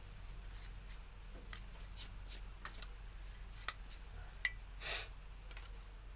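Brake pads and their thin metal plates being handled and fitted: scattered light clicks and taps, a small metallic ping about four and a half seconds in, then a short scrape.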